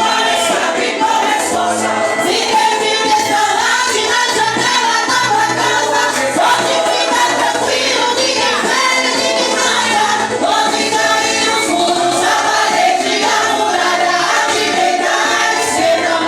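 A women's vocal group singing a gospel hymn in unison, with instrumental accompaniment underneath.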